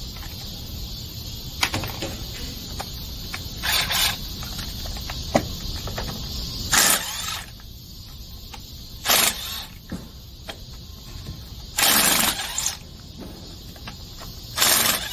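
A cordless driver spinning out the 8 mm hex-head bolts around the rim of a Yamaha X-max 300's drivetrain (CVT) cover, in about five short bursts with light clicks between.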